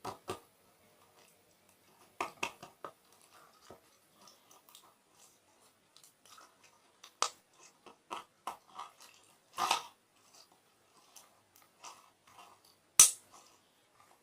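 Chewing: irregular crunchy clicks, with one sharper, louder click near the end.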